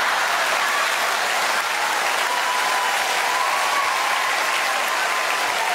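Studio audience applauding steadily after a comedian's punchline.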